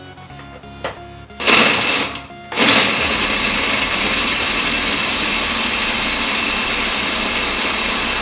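Countertop blender crushing ice in a liquid cocktail mix: a short burst about a second and a half in, then from about two and a half seconds it runs steadily and loudly, blending it into a slush.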